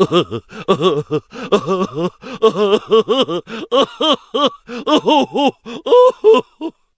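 A person laughing in a long run of short pitched "ha" bursts, about three a second, each rising and falling in pitch: a laughter sound effect that stops suddenly near the end.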